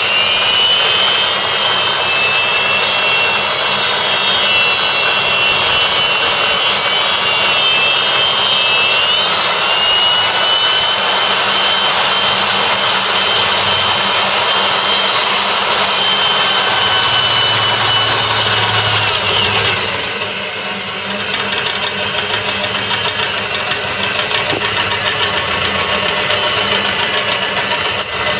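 A high-pitched electric power tool working on car body steel. It winds up, runs steadily, sags in pitch under load about 8 seconds in and recovers, then winds down about 20 seconds in, leaving a rougher crackling noise.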